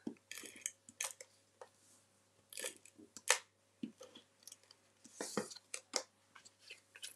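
Squares of metallic and patterned paper being handled and pressed together on a desk: short, scattered rustles and taps, several over a few seconds.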